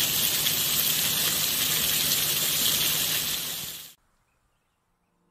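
Steady heavy rain falling, an even hiss that cuts off suddenly about four seconds in.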